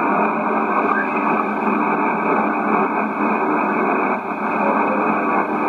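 Shortwave receiver audio from a Yaesu HF transceiver tuned to the 40-metre band: steady band noise and static, squeezed by the receiver's narrow filter into a thin, telephone-like band with nothing above it.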